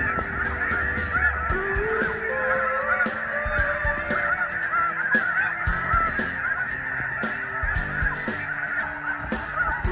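Dense chorus of snow geese calling: many overlapping high, yelping honks running together without a break.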